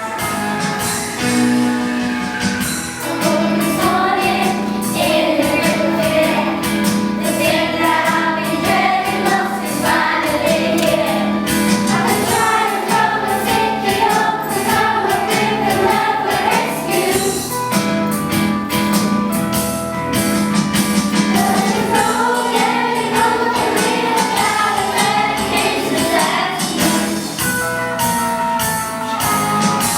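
A group of voices singing a song together over instrumental backing music with a steady beat.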